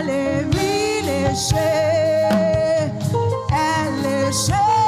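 Gospel praise-and-worship singing by a church choir with band accompaniment and drum kit, the voices holding long, wavering notes between lyric lines.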